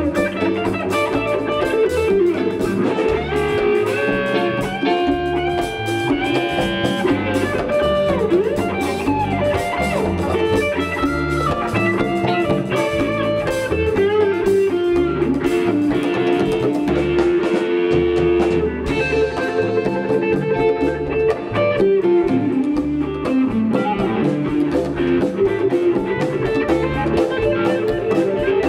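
Live rock band playing an instrumental passage with no vocals: electric guitars over bass guitar and a drum kit.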